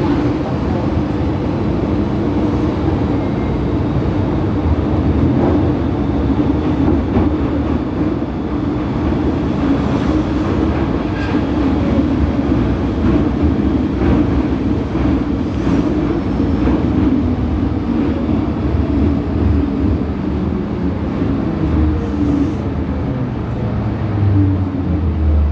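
An MTR Island Line M-Train electric multiple unit running, heard from inside the passenger car: a steady, even rumble of wheels, track and traction equipment.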